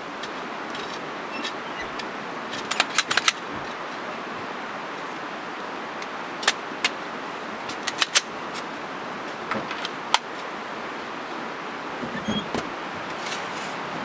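Scattered sharp clicks and light clacks in small clusters, a few around three seconds in, more about six to eight seconds in, and again near the end, as things are handled at the open driver's door of an SUV. Under them runs a steady background hiss.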